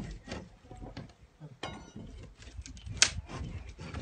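Faint scattered clicks and light knocks, with one sharper click about three seconds in.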